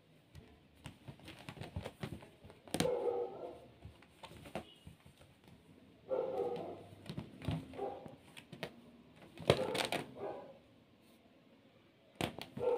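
A cat meowing in several short calls a few seconds apart, with sharp clicks and rustles between the calls.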